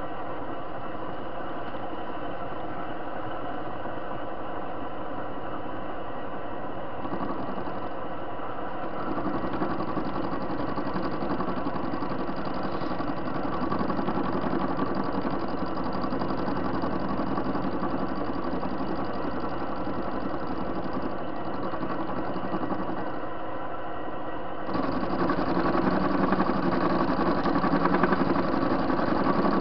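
TV-16 small screw-cutting lathe running steadily, its motor and spindle drive humming. It grows louder about seven seconds in, eases briefly, and grows louder again near the end as the cutting tool takes a pass across the turning workpiece.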